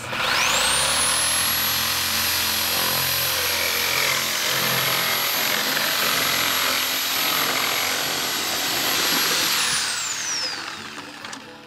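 Corded reciprocating saw cutting the bottom off a plastic five-gallon bucket: the motor's high whine climbs as it starts, runs steady while the blade saws through the plastic, then winds down near the end as the saw stops.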